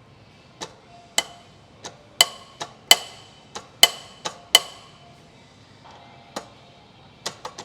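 Sharp metallic taps and clinks of hand tools against metal parts, about a dozen at irregular spacing, each ringing briefly, thickest in the middle.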